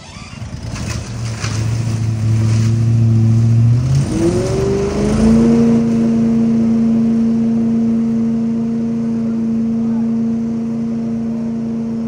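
Leaf vacuum's gas engine catching and settling into a low idle. About four seconds in it is throttled up, rising in pitch to a steady high speed for vacuuming leaves.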